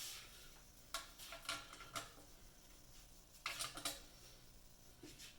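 Faint metal clinks and scrapes of small engine parts and tools being handled: a few light clicks about a second apart, then a short cluster of scraping clicks just past the middle.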